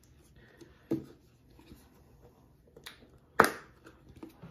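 Plastic squeeze bottle of maple syrup being handled, its cap giving sharp clicks. There is one about a second in and a louder one about three and a half seconds in, with faint handling noise between.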